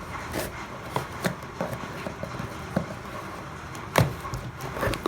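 Hands working at a speedcube's retail packaging to get it open: scattered small clicks and knocks, with a sharper knock about four seconds in.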